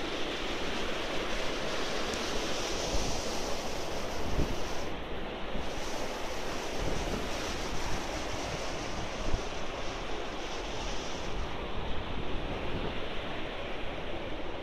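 Steady rushing ambient roar inside a subway station, with a few soft thumps.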